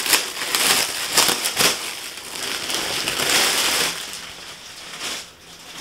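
Clear plastic packaging bag crinkling and rustling as it is pulled open and a purse is drawn out of it, busy for about four seconds and then quieter.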